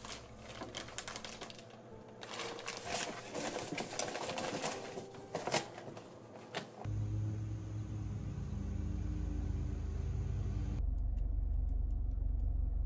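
Plastic snack packaging crinkling and goods knocking as items are pressed tightly into a cardboard box, in irregular bursts of rustles and clicks. About seven seconds in this gives way to a steady low rumble inside a car cabin.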